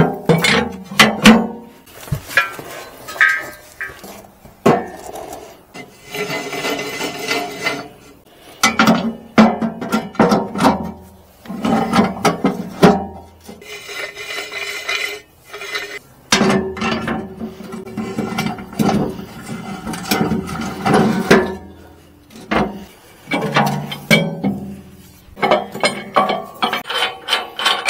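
Hollow steel clamp-on pallet forks clanking, knocking and scraping against a tractor's steel loader bucket as they are handled and fitted. Repeated sharp metallic knocks with some ringing, broken up by stretches of metal rubbing.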